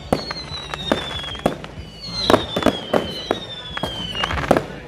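Fireworks display: aerial shells bursting with a rapid series of sharp bangs and cracks, and three whistles, each falling gently in pitch over about a second.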